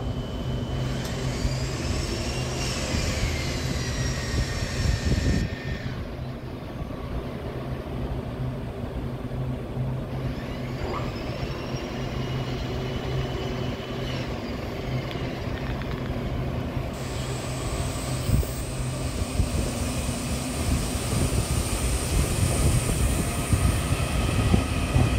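Taiwan Railway electric multiple-unit train. Its traction drive whines in pitch glides that rise and then fall, twice, over a steady low hum. From about two-thirds of the way in, louder running noise sets in as the carriages roll past.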